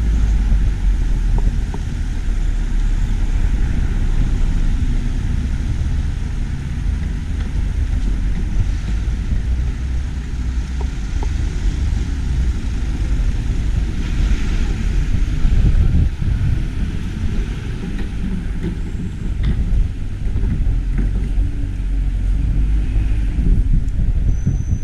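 Wind buffeting the microphone, a heavy, irregular low rumble over faint outdoor background noise.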